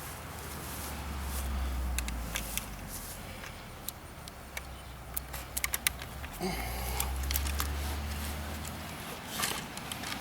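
Scattered sharp clicks and rattles from a home-made slingshot rifle being handled and loaded, most between about two and six seconds in, over a low rumble, with a short rustling burst near the end.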